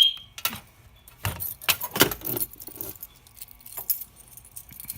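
A fire alarm's high steady tone cuts off right at the start, followed by keys jingling and scattered clicks as the fire alarm control panel is reset.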